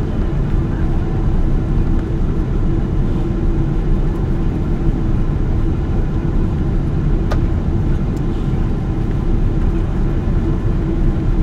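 Steady cabin noise inside a Boeing 777-200 airliner taxiing after landing, a low rumble with a constant hum running under it. One faint click comes about seven seconds in.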